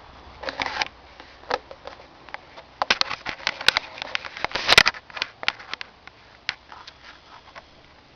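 Snoring, heard as irregular short, noisy snorts and clicks, thickest from about three to five seconds in.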